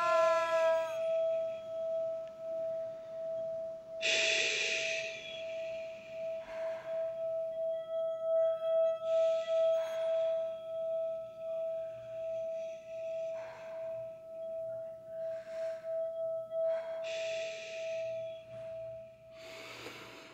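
A steady ringing tone like a singing bowl, held throughout with a slight wavering pulse. Several loud breathy rushes of noise break in over it, the strongest about four seconds in and others near the middle and end.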